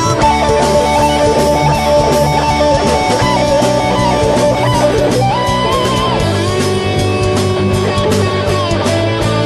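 Instrumental guitar break in a song: a lead guitar plays a melody over rhythm guitar and bass, with no vocals.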